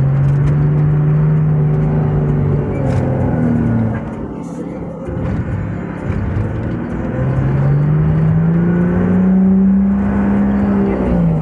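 A vehicle's engine heard from inside the cab while driving, rising in pitch as it accelerates, dropping about four seconds in, then climbing again and falling near the end, as when shifting up through the gears.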